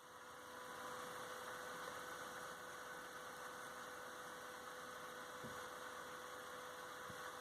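Steady, faint electrical hum with hiss, holding an even tone throughout, with two faint soft ticks in the second half.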